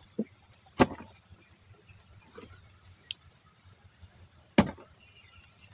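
Two sharp knocks about four seconds apart as a catch of shrimp and small fish is handled in a plastic tub, over a steady high-pitched chirring of insects.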